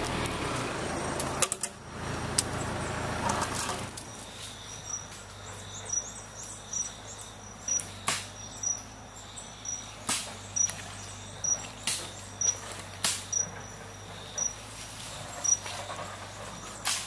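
For the first few seconds a machine engine runs. After that come footsteps crunching through dry leaf litter, with scattered sharp clicks, over a short high chirp repeated about once a second.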